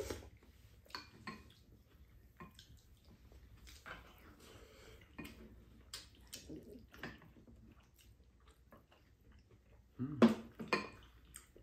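Spoons clinking and scraping against a metal pan and bowls during a meal, with quiet chewing and slurping in between, and a brief louder burst near the end.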